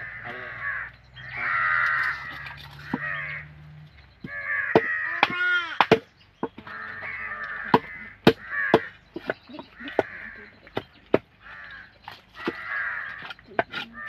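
Large knife chopping fish on a wooden chopping block, a run of sharp irregular chops from about four and a half seconds in. Crows caw repeatedly throughout.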